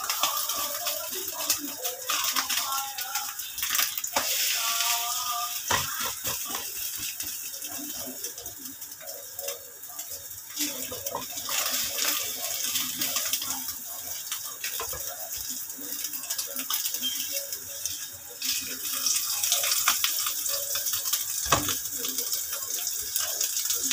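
Sardine-and-egg omelette sizzling steadily in hot oil in a nonstick frying pan, with occasional scrapes and taps of a silicone spatula as it is turned.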